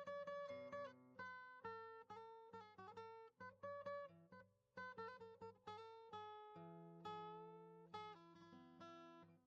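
Quiet background music: an acoustic guitar playing plucked notes and chords.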